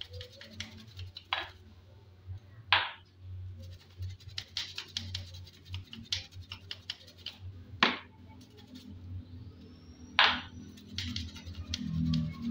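A brush scrubbing a Yamaha Vega R's rear sprocket and drive chain clean. It makes rapid short scratchy strokes, with three louder, longer scrubs about three, eight and ten seconds in.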